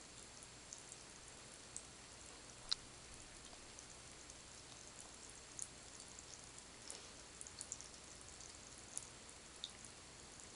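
Faint water drips landing in a bathtub: irregular light ticks, one clearly louder about a quarter of the way in, over a low steady hiss.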